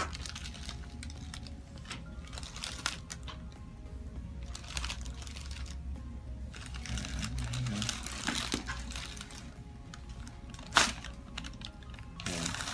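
Scattered soft clicks and rustling from hands working on a patient on a treatment table, with one sharp crack near the end, over background music.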